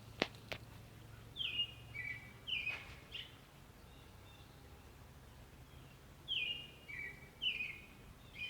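A bird calling in two short phrases of three or four quick high chirps, each note sliding downward, the phrases about five seconds apart. Two sharp clicks come just before the first phrase.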